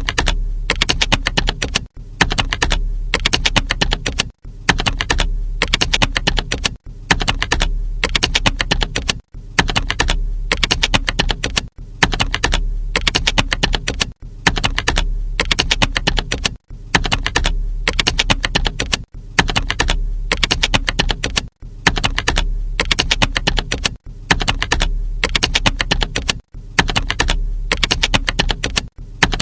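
Computer keyboard typing: rapid, continuous keystroke clicks in stretches of about two and a half seconds, each broken by a brief gap, with a low hum underneath.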